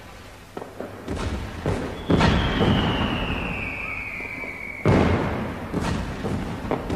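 A 1000-shot sky shot aerial firework firing: a run of sharp thumps and bangs as shells launch and burst, the loudest about two and five seconds in. A high whistle falls slowly in pitch for nearly three seconds after the bang about two seconds in.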